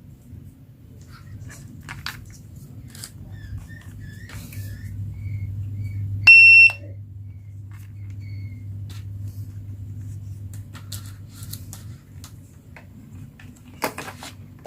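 A toy's electronic beep, one loud steady tone lasting about half a second, about halfway through, amid scattered light clicks and taps of plastic toys being handled.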